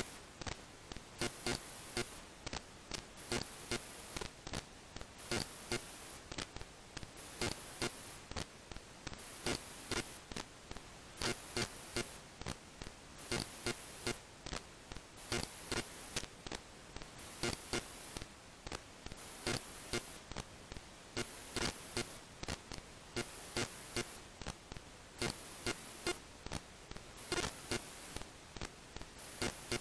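Background music with a regular, repeating beat.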